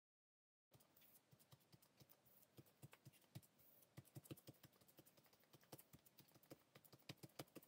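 Near silence with faint, irregular soft taps from about two seconds in: gloved fingertips dabbing wet felt-tip ink onto a drawing-paper card resting on a plastic sleeve.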